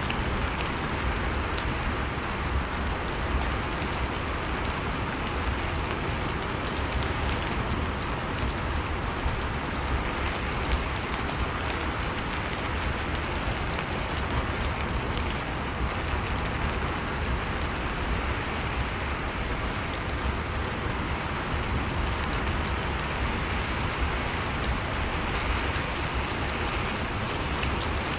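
Steady rain ambience: a continuous rain hiss with many small drops pattering.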